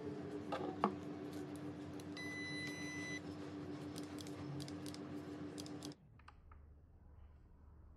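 Faint small clicks and taps of a plastic speedlight, a Godox V860II-S, being picked up and turned in the hands, over a steady low hum. A brief high electronic tone sounds for about a second, about two seconds in. The sound drops away about six seconds in.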